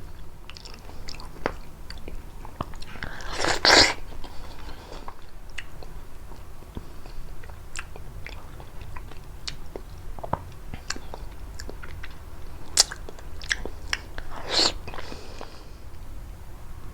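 Close-miked biting and chewing of prickly pear fruit: many small wet mouth clicks and crunches, with two louder bites, one about three and a half seconds in and another near the end.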